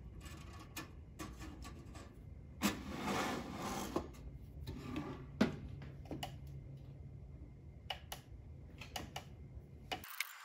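Toaster oven being loaded: clicks and knocks of the metal wire rack and a PCB being handled, a scraping rattle about 3 s in, a sharp knock about 5 s in as the glass door shuts, then a few more small clicks.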